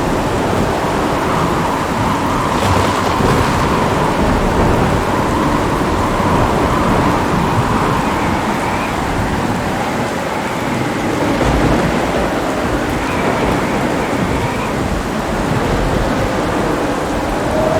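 Steady heavy rain with low thunder rumbling underneath, with no sharp thunderclap.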